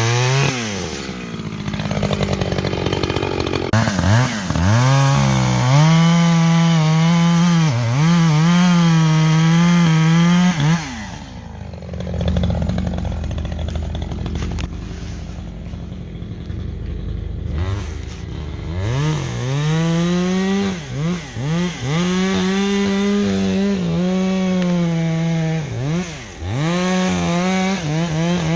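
Echo CS-620PW two-stroke chainsaw at high revs cutting into wood, its pitch dipping and recovering again and again as the chain bites. About eleven seconds in it drops back to a low idle for several seconds, then revs up and cuts again.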